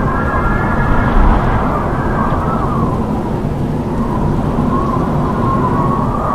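Howling wind: a steady low rumble with a whistling howl that wavers and slides up and down in pitch.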